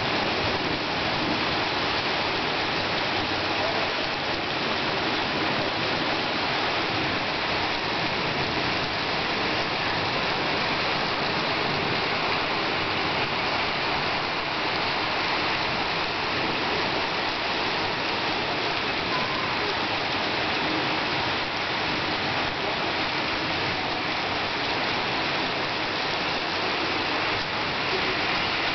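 Heavy rain pouring steadily onto a paved street and parked cars: an even, unbroken hiss of a downpour.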